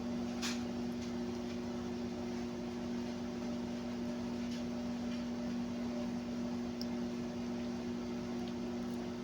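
Microwave oven running with a steady low hum while the noodles heat, with a faint click about half a second in.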